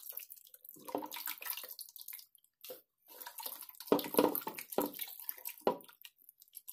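Hands squelching and sloshing whole chickens around in a large pot of liquid marinade, in irregular wet bursts with a short lull partway through.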